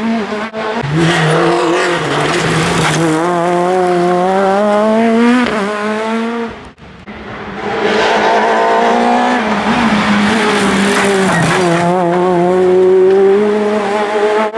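Ford Fiesta S2000 rally car's two-litre four-cylinder engine running hard under acceleration, its pitch climbing steadily for several seconds. It breaks off sharply about seven seconds in, then the engine is heard again, easing and revving up once more.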